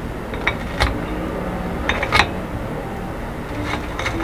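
Scissors snipping fried pempek fish cake into pieces over a ceramic plate: a handful of sharp, irregular clicks as the blades close and knock against the plate, with the loudest about two seconds in.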